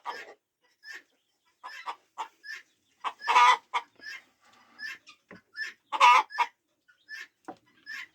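A chicken clucking: a string of short calls, with two louder, longer ones about three and a half and six seconds in.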